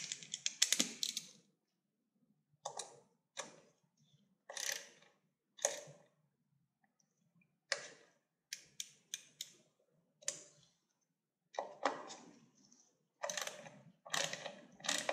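Scattered light clicks, taps and scrapes of small metal parts and a hand tool at irregular intervals, from a badge and its screws being fitted into a motorcycle throttle body.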